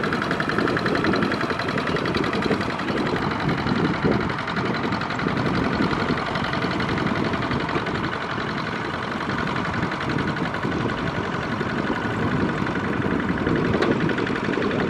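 Two-wheel walking tractor's single-cylinder diesel engine running steadily with a rapid knocking beat, working under load as its steel cage wheels churn through a flooded rice paddy.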